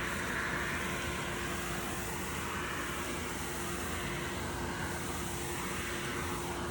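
CNC router spindle running with a steady whine while a 1/8-inch bit cuts a pocket into a maple board. A steady cutting hiss under it swells and eases slowly as the bit moves through the wood.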